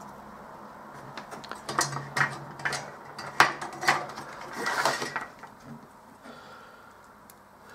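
A run of sharp metallic clicks and a short clatter as hand tools and a circuit board are handled on a workbench, mostly between about two and five seconds in, then only soft handling sounds.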